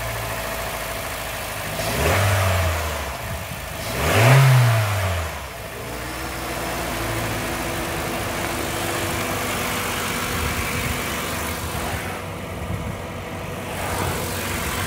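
Honda 1.5-litre i-VTEC four-cylinder petrol engine idling, revved briefly twice about two and four seconds in, the second rev higher and louder, then settling back to a steady idle.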